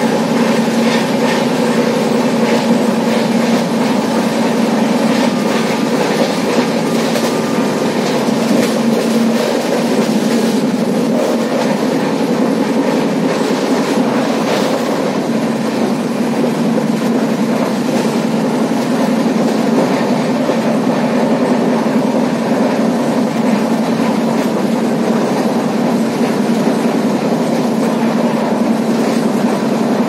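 Steady running noise of a moving passenger train heard from on board, its wheels clicking over the rail joints.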